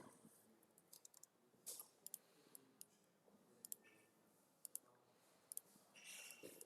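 Faint computer mouse clicks, a dozen or so scattered irregularly, several in quick pairs, as lines are drawn in CAD software.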